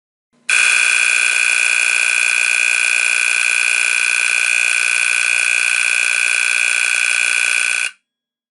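Cerberus Pyrotronics HAC-120 electromechanical fire alarm horn, a relabeled Federal Signal Vibratone 350 DR running on 120 VAC, sounding a loud, steady, unbroken buzzing blare. It starts about half a second in, holds for about seven seconds, and cuts off sharply.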